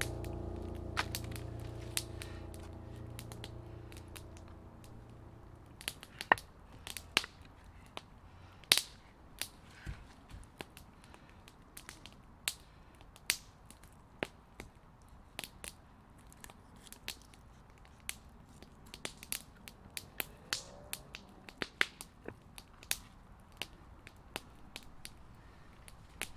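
Background music fading out over the first few seconds, then a wood campfire crackling, with sharp, irregular pops and snaps.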